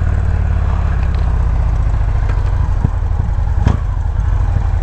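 Motorcycle engine running steadily at low revs, with a single sharp click about three and a half seconds in.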